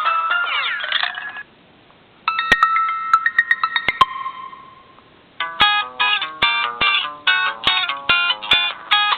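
Preset ringtones of a Prestigio MultiPhone 4020 DUO phone playing one after another. A melody ends with sweeping glides about a second and a half in, a short chiming tune follows and fades out, and a fast tune of short repeated notes starts about five and a half seconds in.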